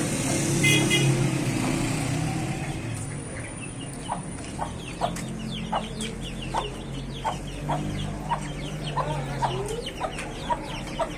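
Mother hen clucking in short, regular clucks while her chicks peep in quick, high, falling notes, with a louder call about a second in.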